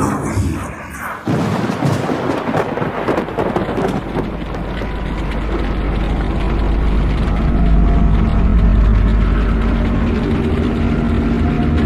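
Thunderstorm sound: rain with thunder, a sudden crash about a second in, then a deep rumble that grows louder toward the end.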